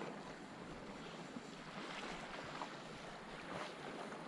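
Small waves lapping against a plastic fishing kayak's hull, with light wind on the microphone.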